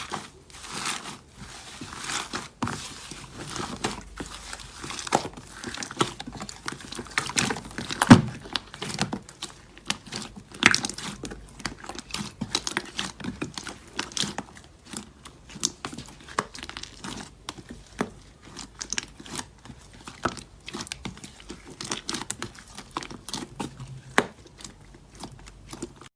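Slime being squeezed and stretched by hand, giving a dense, irregular run of small crackling clicks and pops, with one sharper pop about a third of the way through.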